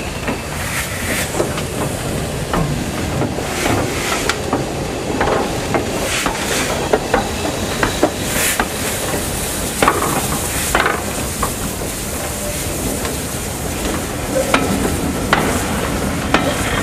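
LMS Stanier Black 5 4-6-0 steam locomotive and its coaches passing close by: a steady rushing noise with irregular sharp clicks and clanks of wheels and running gear on the track.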